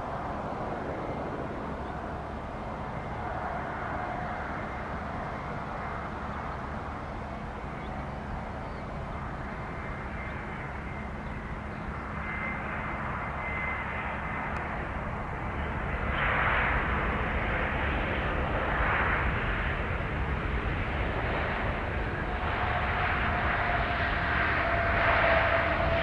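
Airbus A321neo jet engines heard across an airfield as the airliner lands, a steady whine on approach. The sound grows louder and rougher about two-thirds of the way in, during the landing roll.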